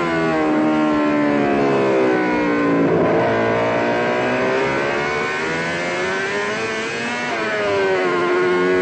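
Racing motorcycle engine at high revs. The pitch sinks for the first few seconds as it slows, then climbs steadily as it accelerates, with a short drop about seven seconds in as it shifts up and climbs again.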